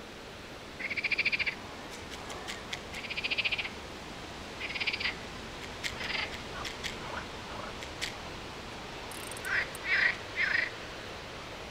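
Frogs calling: a series of short, rapidly pulsed trills, one every second or two, with three close together near the end. A few faint clicks sound in between.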